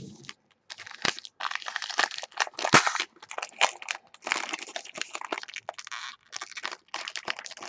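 Foil trading-card pack wrapper crinkling as hands handle it and open it, a quick, irregular run of crackles.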